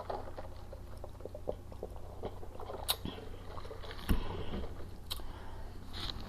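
Close-up chewing of fried fish and chicken: wet mouth sounds, smacking and small crackling clicks, with a low thump about four seconds in.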